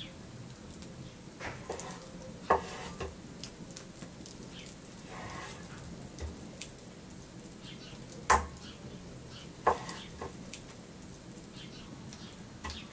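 Raw chicken strips being laid down one by one on a wooden cutting board, giving a few short wet slaps and knocks. Underneath, the faint steady crackle of a wood fire.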